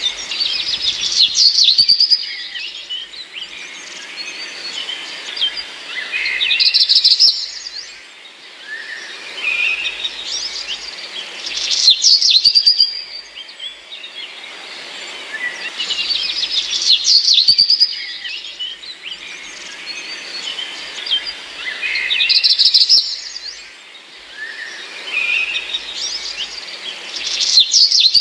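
Small birds chirping and singing, with many quick high chirps and trills over a faint hiss. The same stretch of birdsong repeats about every ten seconds, like a looped recording.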